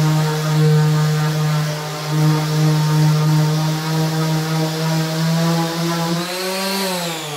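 Bosch PEX 300 AE 270-watt random orbital sander running at its top speed setting against thick gloss paint: a steady motor hum with the pad's rubbing hiss on the paint. About six seconds in the pitch rises briefly, then near the end the motor is switched off and winds down with a falling whine.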